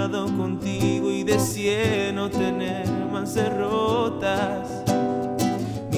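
A man singing, accompanying himself on a strummed nylon-string classical guitar.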